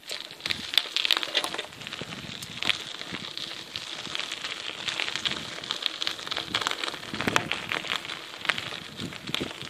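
Footsteps crunching on a gravel path: irregular crackles over a steady high hiss.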